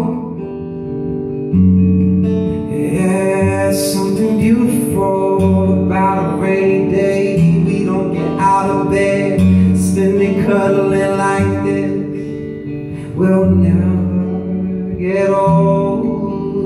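Acoustic guitar strummed, with a man singing over it in a live performance.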